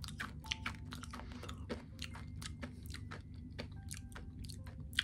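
Hard sugar candies being crunched and chewed in the mouth: a fast, irregular run of crisp crunches.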